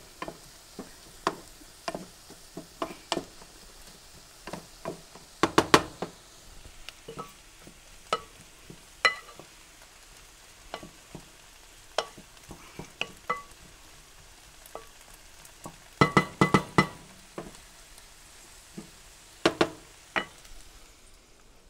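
A cooking utensil stirring and clinking against a skillet of sautéing onions and peppers, over a faint steady sizzle. The knocks come in irregular taps, with quick flurries about five and a half seconds in and again about sixteen seconds in.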